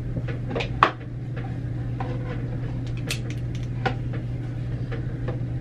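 A few sharp plastic clicks and clacks as a hair straightener is handled and its plates clamped onto hair, the loudest just under a second in, over a steady low hum.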